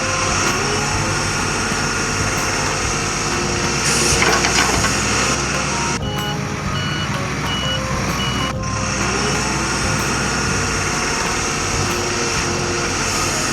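Cartoon sound effects of a truck's engine running steadily, with a reversing beeper sounding about four times around the middle.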